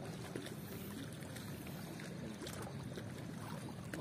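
Steady rush of river water, with faint distant voices underneath.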